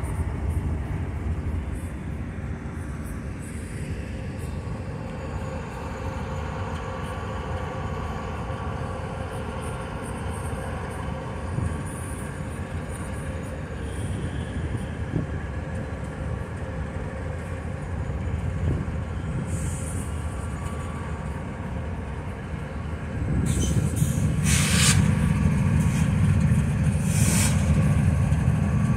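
CSX GE Evolution-series diesel locomotives standing with their engines idling, a steady low rumble that grows louder about 23 seconds in. There are a few short hisses near the end.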